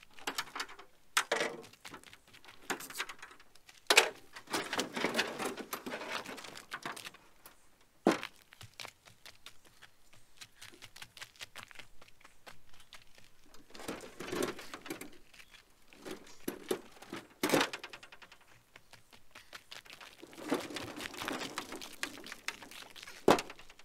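Small aluminium boat being slid out of a pickup bed over the tailgate and rolled across gravel on a stern wheel: several sharp knocks of the hull, spread out, between stretches of scraping and gravel crunching.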